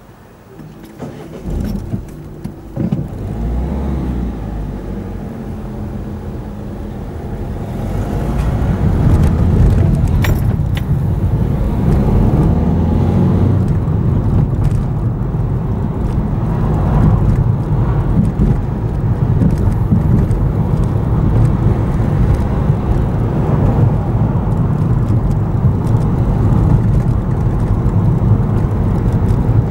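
A car pulling away and driving, heard from inside the cabin. A few knocks come in the first three seconds. The engine and tyre rumble then builds over the next several seconds and holds steady and low.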